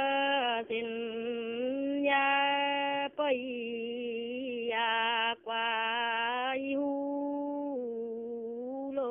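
A woman singing a Dao folk reply song unaccompanied, in long drawn-out held notes with slight bends, taking short breaths between phrases.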